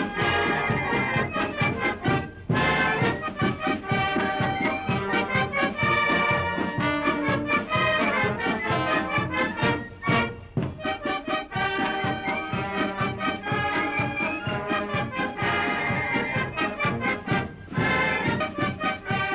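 Brass band playing a tune with a steady beat of short, separate notes.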